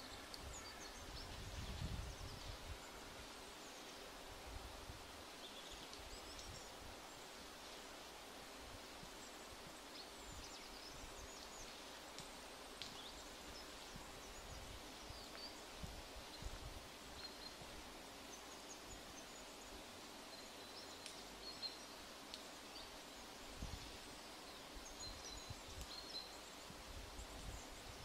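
Faint forest ambience: scattered short, high chirps and calls of small songbirds throughout, over a faint steady hum, with a few low thumps in the first couple of seconds.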